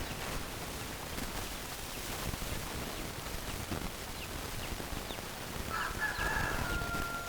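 A rooster crowing: one long, loud call that begins near the end, over a steady background hiss, with a few faint short chirps before it.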